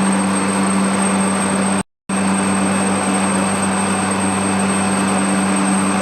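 Steady machine drone with a strong low hum, cut off completely for a moment about two seconds in before carrying on unchanged.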